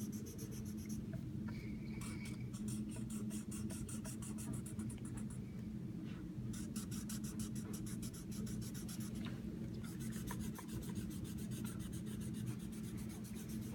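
Writing on paper: runs of rapid scratching strokes with short pauses, over a steady low hum.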